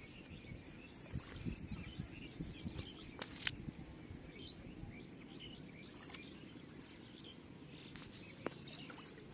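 Quiet open-field background noise with faint, scattered bird chirps and a single sharp tick about three seconds in.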